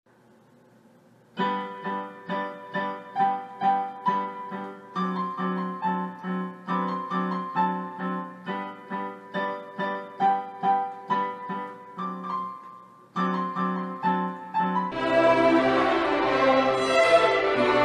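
Electronic keyboard played with a piano sound, a simple piece with notes and chords struck about twice a second and a short pause near the end. About fifteen seconds in, it gives way to a large group of young violinists playing together.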